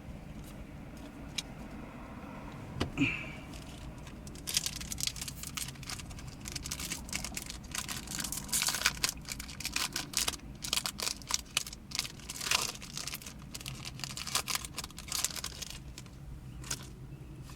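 Foil wrapper of a Yu-Gi-Oh booster pack crinkling and tearing as it is opened, a dense crackling that starts about four seconds in and dies away near the end.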